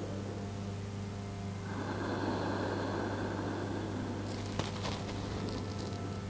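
Quiet steady hum under faint hiss, with a soft rushing noise joining about two seconds in and a few faint clicks near the middle.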